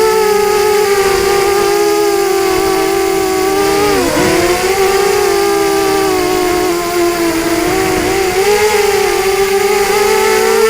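FPV quadcopter's brushless motors and propellers whining steadily. The pitch dips sharply about four seconds in and again about eight seconds in as the throttle drops, then climbs back.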